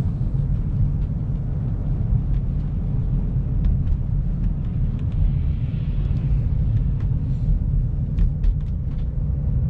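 Steady low road and drivetrain rumble inside the cabin of a BMW X5 driving on wet, snowy roads, with scattered light clicks.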